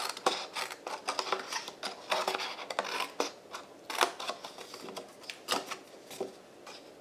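Small scissors snipping through cardstock in an irregular run of short cuts, with the sheet rustling as it is turned and handled.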